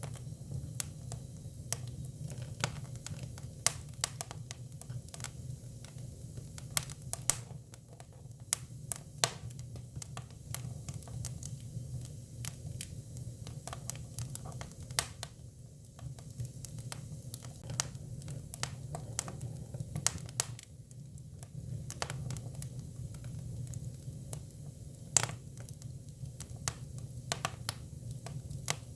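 Hinoki (Japanese cypress) firewood burning, with irregular sharp crackles and pops over a steady low hum.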